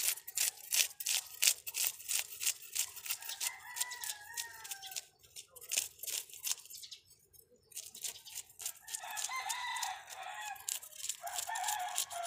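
Knife scraping the scales off a fish in quick strokes, about four a second, with a short pause past the middle. Roosters crow in the background several times, a few seconds in and again through the last few seconds.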